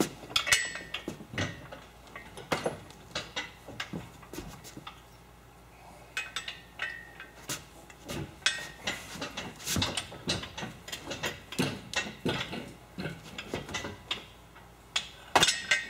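Irregular metallic clinks and clanks as steel lifting chain and hardware are handled, with a quieter lull about four seconds in and a louder flurry near the end.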